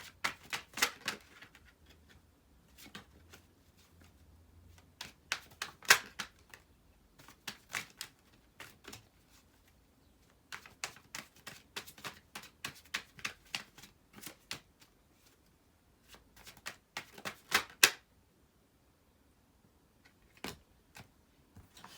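Tarot cards being shuffled and handled, heard as bursts of quick crisp clicks and snaps with short pauses between them. A last few single clicks come near the end.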